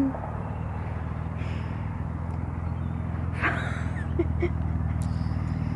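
Supercharged V6 of a Mercedes C32 AMG running at low revs through its Magnaflow muffler exhaust, a steady low rumble that grows slightly louder. A brief high-pitched sound about three and a half seconds in.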